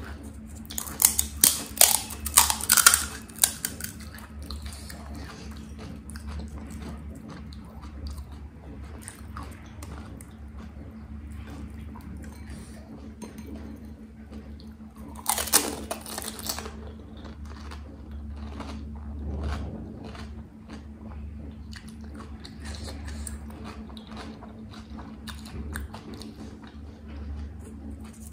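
Close-miked eating of pani puri: the crisp, hollow puri shells crunch loudly in bursts about a second in and again around the middle. Quieter chewing and small finger-handling clicks fall between the bursts, over a steady low hum.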